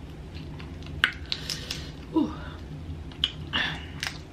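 Cooked tiger shrimp shell being peeled by hand: a series of crisp cracks and crackles as the shell comes away. A brief voice sound slides downward in pitch about two seconds in.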